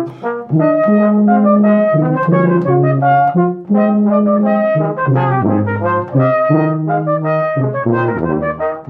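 Brass ensemble playing live, several parts in harmony over a low bass line, in phrases with brief breaks between them.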